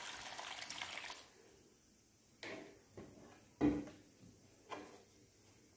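Thick coconut milk pouring onto cooked rice-flour dough in a steel plate for about the first second. This is followed by four soft knocks of a wooden spoon against the steel plate, the loudest about three and a half seconds in.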